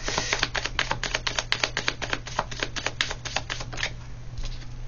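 Tarot cards being shuffled by hand: a quick run of card slaps, about seven or eight a second, that stops near the end.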